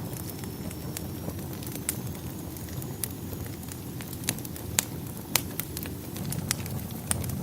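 Wood fire crackling in a fireplace: irregular sharp pops and snaps over a steady low rumble of burning, with two louder pops past the middle.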